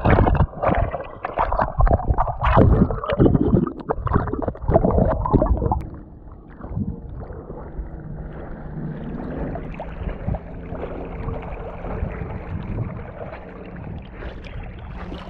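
A retriever swimming with a camera on its back. For about the first six seconds there is loud, choppy splashing and sloshing of water against the camera as it pushes through reeds. After that comes a softer, steady wash of water as it paddles across open pond water.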